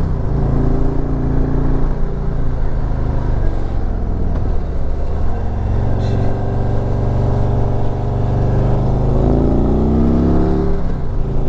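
Harley-Davidson Street Glide Special's V-twin engine under way at road speed, with wind rush. Its pitch climbs as the bike accelerates just after the start, holds fairly steady through the middle, and climbs again about nine seconds in.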